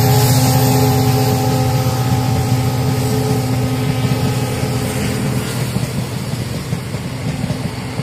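The diesel locomotive's engine hum fades as it draws away, and a passenger express's coaches roll past with a rumble. Their wheels tick irregularly over the rail joints in the second half.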